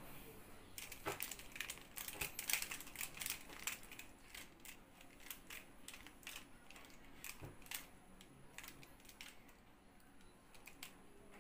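Square-1 puzzle being turned by hand: rapid plastic clicks and clacks as its layers twist and slice, thick for the first few seconds, then sparser and softer.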